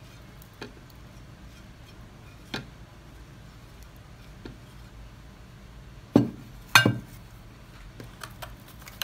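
Light clinks and taps of a spatula and plate against a food processor bowl as spices are scraped into it, with two louder knocks about six seconds in.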